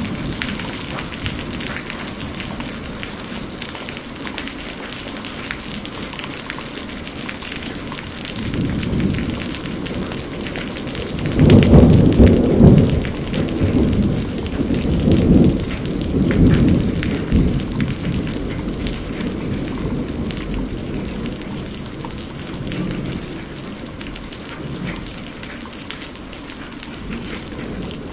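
Steady rain falling, with thunder rolling in about a third of the way through: a loud peal near the middle, then rumbles that die away over several seconds, and a fainter rumble later on.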